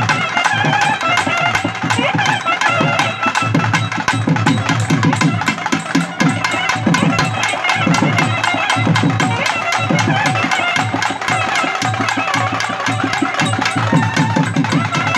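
A naiyandi melam ensemble playing: a nadaswaram's loud, reedy melody over fast, steady thavil drumming.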